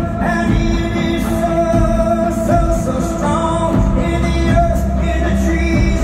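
Live concert music through a large PA: acoustic guitar with singing over a steady low bass.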